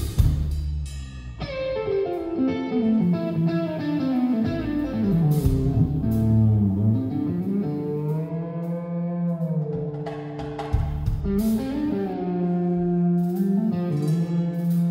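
Live rock band: an electric guitar plays a lead line of long sustained notes that bend and glide up and down in pitch, over bass guitar and drums. The sound comes through a phone's microphone and is somewhat muffled.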